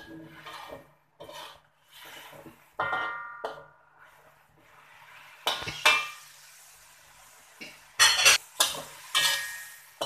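Metal spatula stirring in a metal wok: irregular scrapes and clanks of metal on metal, some with a brief ring, the loudest a little past halfway and in a cluster near the end.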